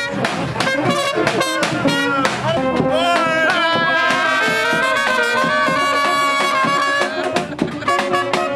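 Serbian street brass band playing a traditional melody: trumpets and horns over a drum. The horns hold long notes through the middle, and the drum beat stands out at the start and near the end.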